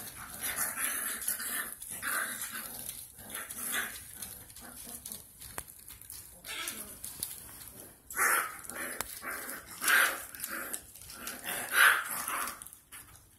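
Five-week-old bull-breed cross puppies barking and yipping in short bursts as they play-fight; the loudest cries come about eight, ten and twelve seconds in.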